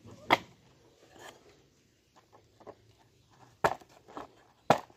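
Plastic toy truck chassis and wheels clicking and knocking as they are handled and fitted together: three sharp knocks, one just after the start and two near the end, with softer ticks between.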